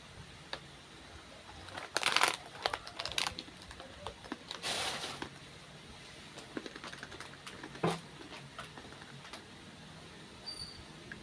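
Close, crackly snack-handling and eating sounds. There are scattered clicks and two louder crackling bursts, one about two seconds in and a longer one near the middle, of the kind that crinkling snack wrappers or crunching crackers make.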